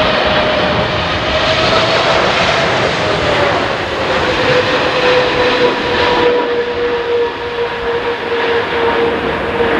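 Boeing 777-300ER's GE90 turbofan engines on final approach: a steady jet roar with an engine whine that slides down in pitch a few seconds in as the airliner passes, then holds steady.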